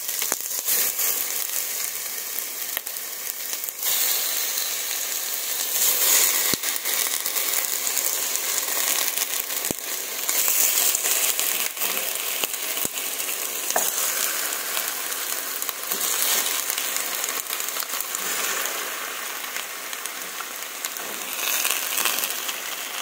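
Meat sizzling in a little oil in an enamelled pot as raw pieces are dropped in by hand, a steady frying hiss with a few faint clicks.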